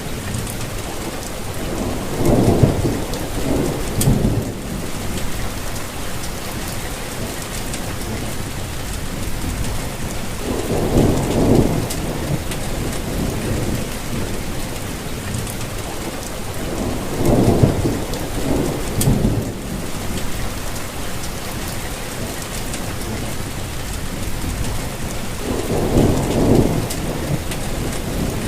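Steady rainfall hissing on leaves and surfaces, with low rolls of thunder rumbling up four times, each for a second or two.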